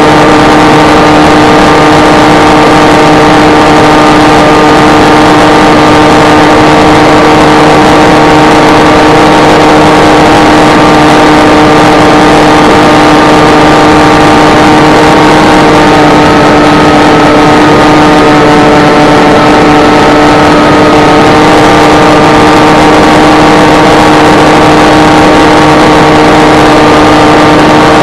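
S800 flying wing's electric motor and propeller running steadily in cruise, heard from on board: a loud buzz of several held tones over a rush of wind noise. The pitch lifts slightly about halfway through and eases back a few seconds later.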